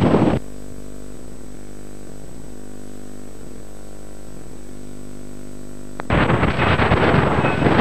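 Wind buffeting a camcorder microphone, cutting off abruptly about half a second in to a steady electrical hum with many overtones from a blank stretch of videotape; the wind noise cuts back in at about six seconds.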